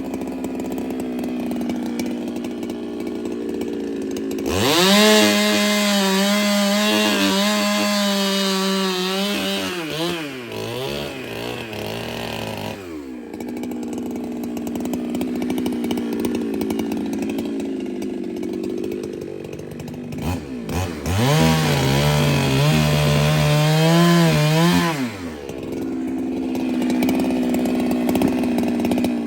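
Ported Husqvarna 395 two-stroke chainsaw idling, then run up to full throttle twice for several seconds at a time, its pitch wavering and falling back to idle after each run.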